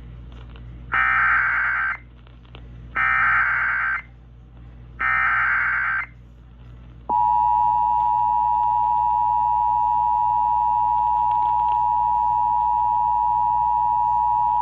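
Emergency Alert System tones: three bursts of SAME header data, about a second each with a second's pause between, then the steady two-tone EAS attention signal starting about seven seconds in and holding. They announce a severe thunderstorm warning.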